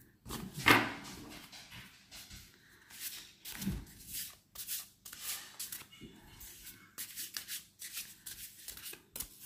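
A deck of oracle cards being shuffled by hand: a run of quick papery rustles and light slaps of cards against the pack, the loudest about a second in.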